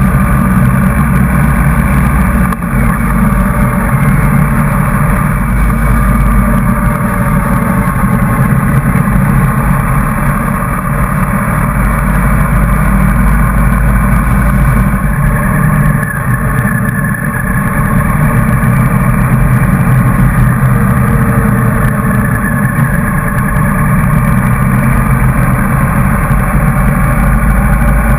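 Motorcycle engine running at steady cruising speed on a motorway, with wind rushing over the bike-mounted microphone; the overall sound dips briefly twice.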